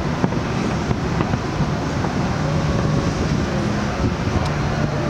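Distant fireworks shells bursting, heard as a few sharp pops over a steady wash of outdoor background noise.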